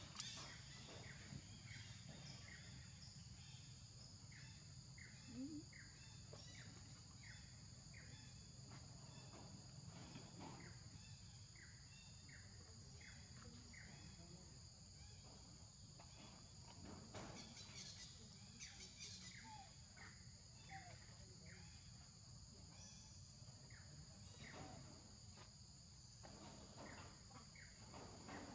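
Faint ambience of insects trilling steadily at a high pitch, with a run of short chirps repeating about twice a second through the first half.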